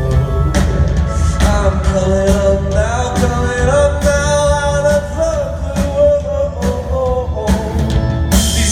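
Live pop-rock performance: a singer holds long, gliding sung notes over a band with drum hits and heavy bass.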